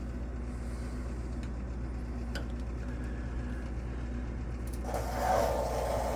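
A water heater's drain valve being opened with a screwdriver: a few faint clicks over a steady low hum, then about five seconds in a rush of water starting to flow out through the valve into the hose.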